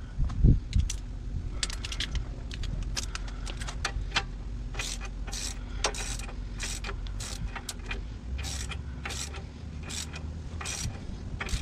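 Hand ratchet clicking in short strokes, about two a second, as the nut on a ball joint stud of a Jeep Cherokee XJ's front steering knuckle is run down. A couple of low knocks come right at the start, and a low steady hum lies beneath.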